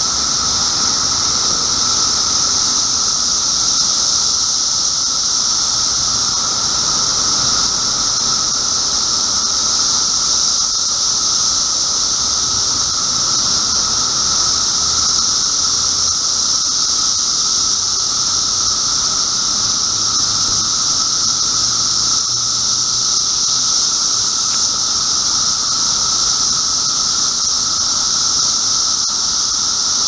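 Chorus of Brood X 17-year periodical cicadas singing in the trees: a loud, steady high-pitched drone with a second, lower steady tone beneath it.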